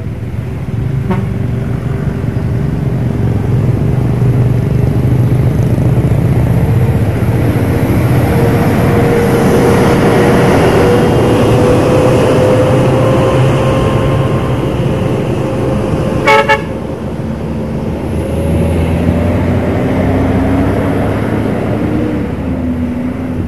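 Heavy diesel vehicles running close by, a low drone with a tone that rises slowly over several seconds. One short horn toot about two-thirds of the way through.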